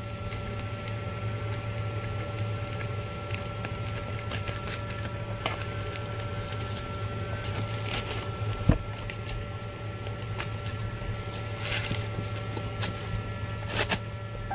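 Scissors snipping through a plastic mailer and a clear plastic bag, with plastic packaging crinkling and rustling in scattered clicks and crackles. There is a sharp click a little past halfway and denser crackling near the end, over a steady low hum.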